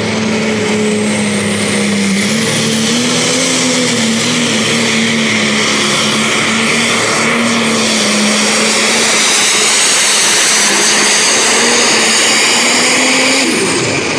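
Light-limited pro stock pulling tractor's turbocharged diesel engine running flat out while pulling the weight sled, a high turbo whistle over the engine note. Near the end the engine note falls away sharply.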